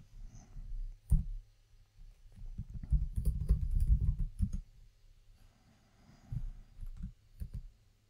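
Computer keyboard and mouse clicks. There is a sharp click about a second in, a quick run of taps from about two to four and a half seconds, and a few more scattered clicks near the end.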